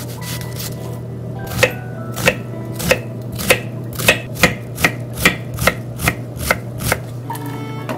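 Kitchen knife chopping an onion on a wooden cutting board: about a dozen sharp knocks of the blade on the board, roughly two a second, starting between one and two seconds in and stopping about seven seconds in.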